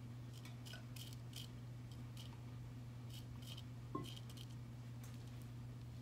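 Faint, scattered light clicks and taps of small nail-art tools and rhinestones being handled and picked through, with one soft knock about four seconds in, over a steady low hum.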